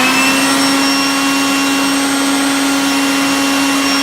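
Leaf blower running, its whine climbing to a steady pitch about half a second in, with a rush of air. It is blowing through a clothes dryer's accordion exhaust duct to clear lint from the vent.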